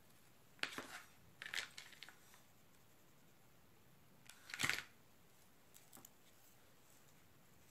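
A few brief rustles from handling paper and craft materials: two close together about a second in and a louder one just past the middle, over quiet room tone.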